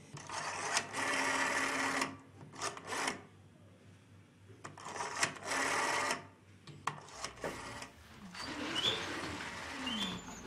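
A rotary telephone dial whirring back after being turned, two longer runs and a few short ones as a number is dialled. Softer, less distinct sounds follow near the end.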